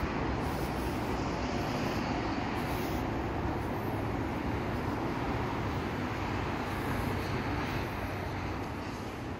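Steady rumble and hiss of distant road traffic.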